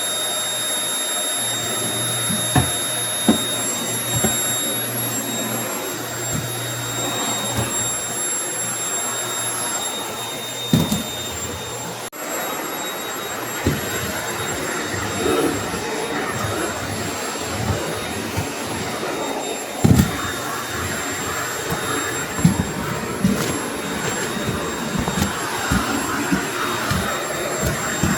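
Household vacuum cleaner running steadily with a high, thin motor whine, sucking up grit and hair from the floor. Short knocks sound now and then, more often in the second half.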